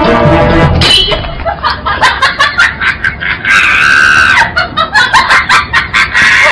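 Music that cuts off about a second in, followed by a voice screaming shrilly in quick repeated bursts, with one long held scream near the middle.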